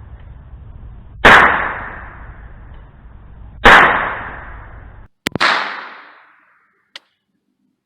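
Three single .22 rimfire shots from an AR-15 pistol with a .22 conversion kit, spaced about two seconds apart, each a sharp crack with a short decaying tail. A faint click follows near the end.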